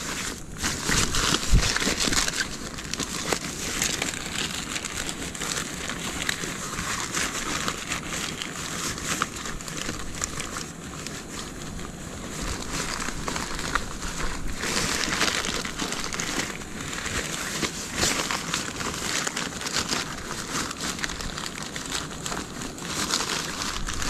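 Continuous crinkling and rustling, like plastic or nylon being handled, with small crackles throughout and a sharper click about a second and a half in.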